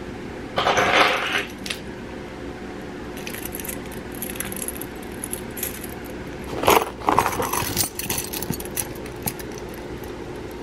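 A bunch of metal house and car keys jangling and clinking as they are handled and hung on a bag's key-fob clip. It comes in several short bursts, loudest about a second in and again around seven seconds in.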